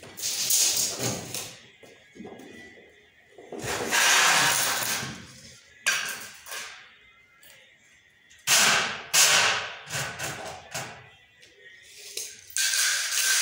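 Thin steel drywall profiles being handled on a concrete floor: metallic scraping and clattering in several separate bursts, the busiest run a little past the middle.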